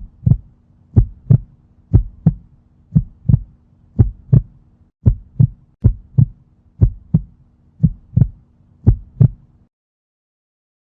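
Heartbeat sound effect: paired lub-dub thumps about once a second, over a faint steady hum, cutting off suddenly near the end.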